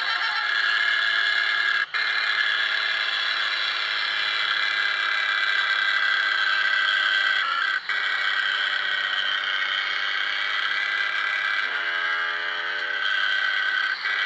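Air horns, a ship-style trumpet horn and telolet horns, sounding in long, steady, high held notes. There are brief breaks about two and eight seconds in, and a lower-pitched horn tone joins for about a second near the end.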